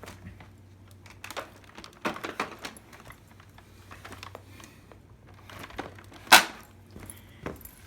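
Scattered clicks, knocks and plastic rustling from handling a Hoover WindTunnel upright vacuum that is switched off, with one sharp louder click about six seconds in; a low steady hum underneath.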